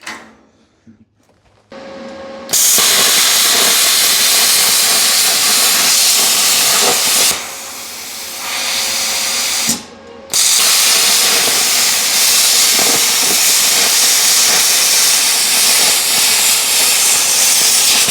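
Plasma cutter cutting 1/4-inch steel plate. A softer hiss of air comes on first, then a loud, steady hiss starts about two and a half seconds in. It eases off for about a second midway, cuts out briefly near ten seconds, then resumes.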